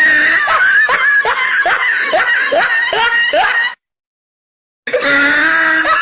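High-pitched laughter in quick, repeated rising bursts, about three a second. It cuts off abruptly to dead silence, then starts up again about a second later.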